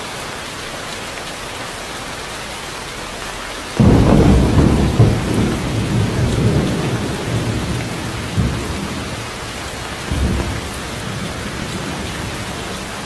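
Steady heavy rainfall, then about four seconds in a clap of thunder breaks in suddenly and rolls on as a low rumble, swelling again a few times before easing back under the rain.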